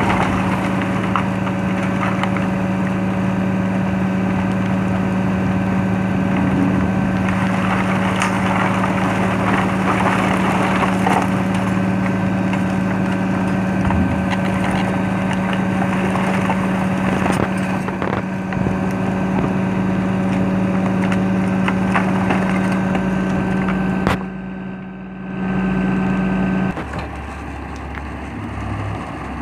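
Refuse truck running with a steady mechanical hum while it discharges a load of scrap wood and board, which slides out and clatters and crackles onto the pile. Near the end the hum cuts off, leaving a lower engine tone.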